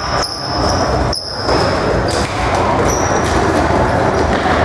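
Box lacrosse game play: a steady din with thuds of the ball, sticks and players on the arena floor.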